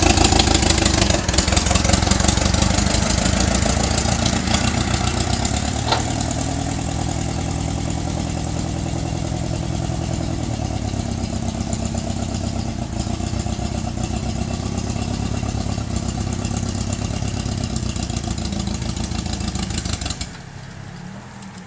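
Engine of an English-built Allis-Chalmers B tractor from around 1951, a small four-cylinder, running steadily as the tractor drives away. It fades over the first several seconds, holds at an even level, then drops away sharply near the end.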